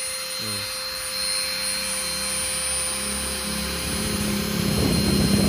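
Modern mini grinder (handheld rotary tool) running at its top speed setting, six: a steady motor whine over a low hum, growing a little louder near the end.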